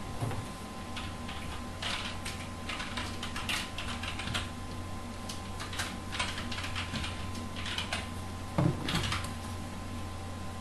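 Irregular light clicking and tapping in short runs, over a steady low electrical hum, with a slightly louder knock about eight and a half seconds in.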